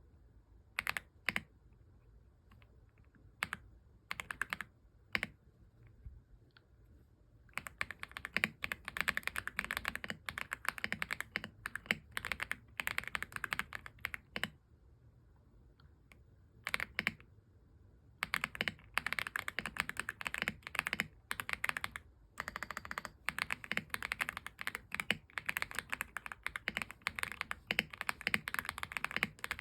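Typing on an AULA F75 mechanical keyboard. It starts with a few scattered keystrokes, then breaks into fast runs of clacking keys with a couple of short pauses.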